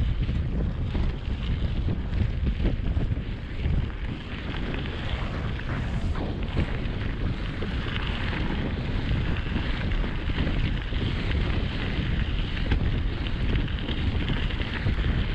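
Steady wind noise on a GoPro action camera's microphone while riding a mountain bike at speed, with the hiss of knobby tyres rolling over a gravel forest road.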